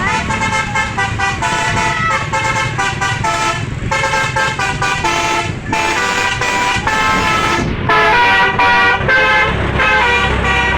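Bus 'telolet basuri' musical horn playing a quick tune: a run of stepped notes that change pitch several times a second, broken by a few short pauses between phrases.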